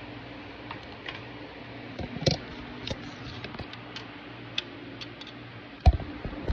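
Close-up chewing of a mouthful of tapioca starch powder: irregular sharp clicks and small crunches, with a louder knock near the end, over a steady low hum.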